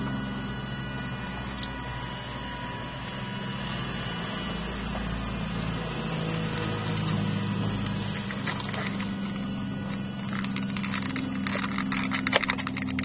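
The electronic throttle body of a Suzuki Alto HA24S gives a steady whine with the ignition on. In the second half, an irregular creaking grates over it as the accelerator pedal moves the throttle. The owner doubts whether the noise is normal.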